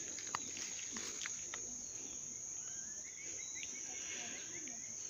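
Steady high-pitched insect drone, with a bird chirping several times in the middle and a few sharp clicks in the first second or so.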